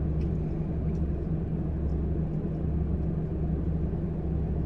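Steady low rumble inside a car's cabin: engine and road noise with an even hum.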